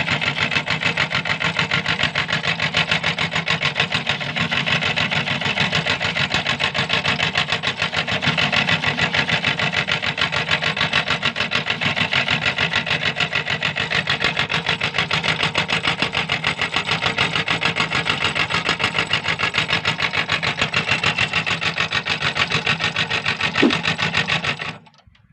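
Electric meat grinder running with a fast, even rattling pulse as it grinds cookies. It cuts off suddenly near the end.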